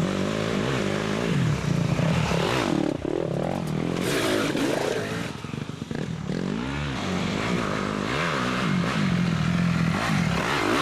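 Dirt bike engines revving hard, the pitch climbing and dropping again and again as the throttle is opened and closed.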